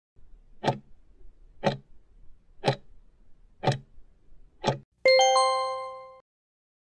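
Countdown-timer sound effect: five clock ticks exactly a second apart, then a bright chime of a few quickly staggered notes that rings and fades over about a second as the timer reaches zero.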